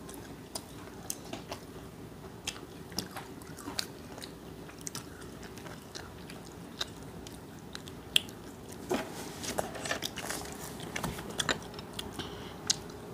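Crunching and chewing of crispy fried chicken: scattered sharp, crunchy bites, busiest about nine to eleven seconds in.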